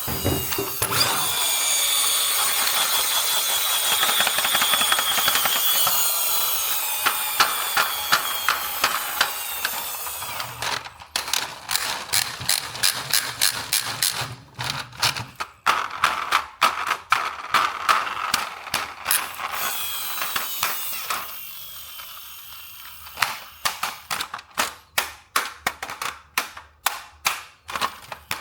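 A toy RC car's small electric motor and plastic gears whirring with a slight falling whine, then sharp ratcheting clicks. Near the end the clicks come evenly, about two to three a second.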